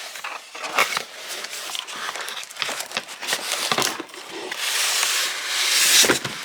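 Packaging rustling and crinkling as a box is unpacked, with scattered clicks and handling knocks, then a louder, longer rasp of packing material being pulled or torn near the end.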